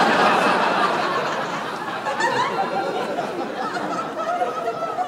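Audience laughing, loudest at the start and slowly dying away.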